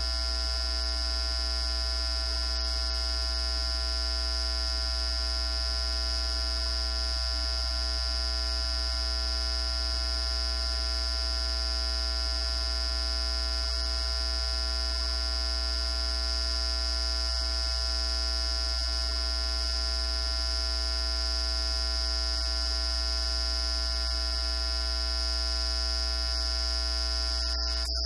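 Steady electrical buzz: a heavy low mains-type hum under a piercing high whine and many fixed tones, with no speech coming through. It is a recording fault or interference on the sound track.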